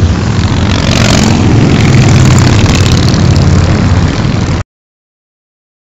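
Motorcycles of a club ride passing on the road, their engines running as a loud, rough rumble. The sound cuts off abruptly about four and a half seconds in.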